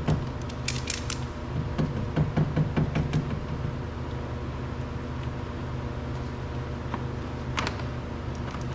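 Light clicks and scratchy rustles of hands working on wiring connectors inside a car door while marking them with a marker. A few sharp ticks come in the first second or so, then one near the end, over a steady low hum.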